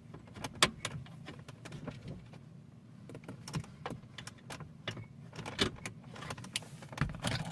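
Scattered light clicks and taps of fingers and a tool fumbling at a loose screw in a car's plastic centre-console trim, over a low steady hum.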